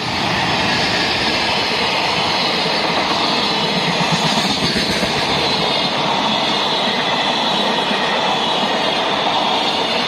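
JR Freight EF210 electric locomotive passing close by, followed by a long run of loaded container flatcars rolling past on the rails, a steady loud rumble of wheels on track.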